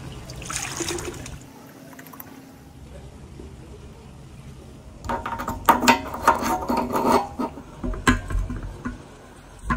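Water scooped from a plastic bucket with a plastic measuring jug, then poured into a steel Yamaha 600 motorcycle fuel tank, splashing and gurgling inside the tank for a couple of seconds from about halfway through. A couple of sharp knocks follow near the end.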